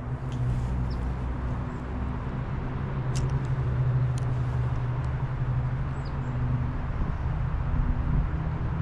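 A steady low engine hum, as of a motor vehicle running, over a constant wash of noise, with a few faint short high chirps.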